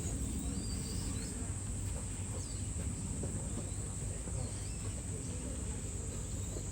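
Cicadas shrilling in a steady, even high-pitched drone, over a low background rumble with a few faint chirps.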